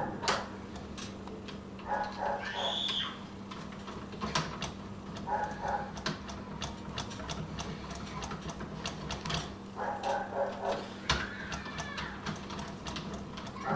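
Screwdriver and deadbolt hardware clicking and ticking as the two long mounting screws are lined up and driven through the lock's interior. A few short, squeaky pitched sounds come in three times, over a steady low hum.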